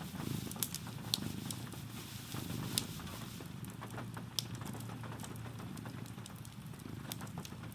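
Wood fire crackling in a fireplace, with a few sharp pops over a steady low rumble, mixed with soft rain patter.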